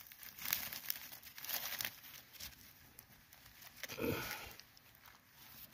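Faint rustling of dry leaves and scraping of soil around a dig hole, with scattered small crackles and one brief, louder muffled sound about four seconds in.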